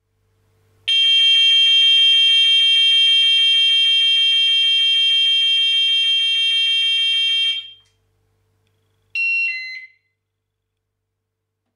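Lupusec smoke detector's siren sounding a loud, steady, shrill high tone for about seven seconds, then cutting off. About a second and a half later there is a short beep falling in three steps.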